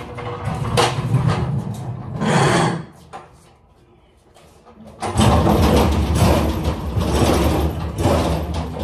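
Manual pallet jack being pushed across concrete, its wheels and forks rattling loudly from about five seconds in. Before that, a few scattered clicks and knocks and a short lull.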